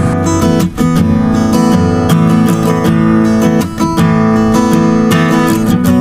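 Background music with a strummed acoustic guitar playing chords.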